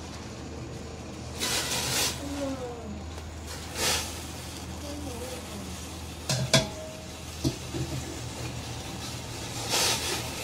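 Bok choy tipped from a metal bowl into a steel pot of hot water, with short splashing hisses as the greens go in and a few sharp metal clinks, the loudest about six and a half seconds in, then a ladle stirring near the end. A steady low hum runs underneath.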